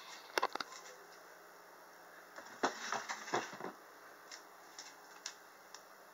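Handling noise from a handheld camera being moved and gripped: a few sharp clicks, then a second or so of rubbing and scraping about three seconds in, then a few light ticks.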